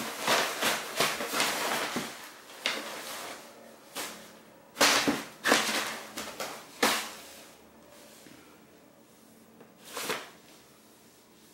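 Cat thrashing and batting inside a collapsible fabric play tunnel: repeated bursts of rustling and scraping from the tunnel's fabric. The bursts come thick and fast for the first few seconds, then turn scattered, with a last one near the end.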